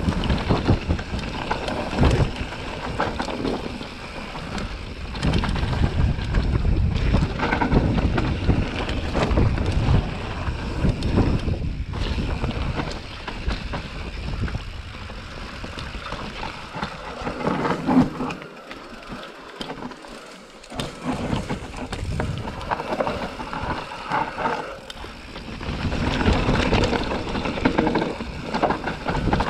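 Transition Sentinel full-suspension mountain bike riding down a dirt and root singletrack: tyres rolling and scrabbling over the ground, with steady rattles and knocks from the bike and wind buffeting the microphone. It eases off for a few seconds past the middle, then builds again.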